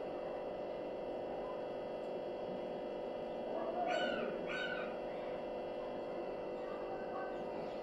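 A cat giving two short, high mews about half a second apart, roughly four seconds in, over a steady low hum.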